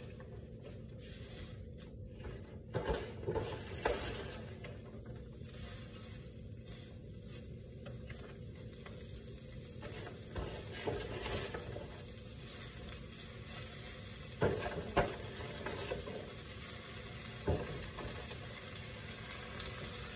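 Fresh spinach leaves being tipped from a plastic clamshell into a hot oiled skillet, with a low, steady sizzle under several brief rustles and knocks of leaves and plastic.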